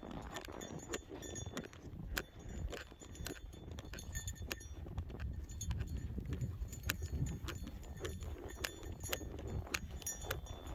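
Footsteps crunching in snow, about two sharp crunches a second, over a steady low rumble of wind buffeting the microphone.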